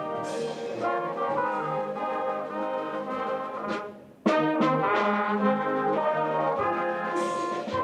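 A brass band plays music with sustained chords. The music dips away about four seconds in and cuts back in abruptly, like a break in the recording.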